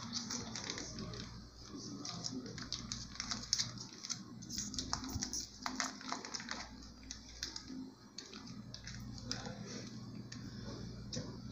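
Plastic mayonnaise sachet crinkling in the hand as it is squeezed out over bread, a run of faint, irregular small clicks and crackles.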